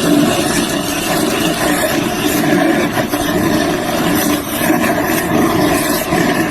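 A loud, steady engine running.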